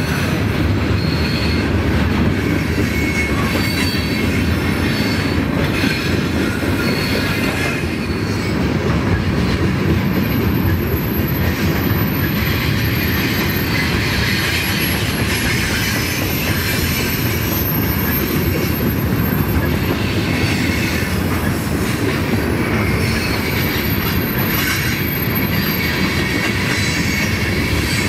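Freight train of covered hoppers and tank cars rolling past at track side: a steady rumble of wheels on rail, with thin high-pitched wheel squeals now and then.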